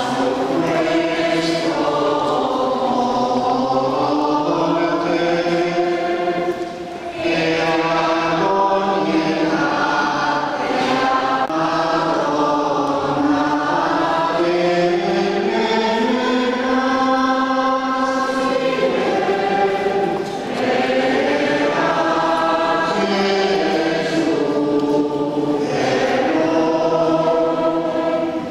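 Church congregation singing a hymn together in long phrases, with short breaks for breath about seven and twenty seconds in.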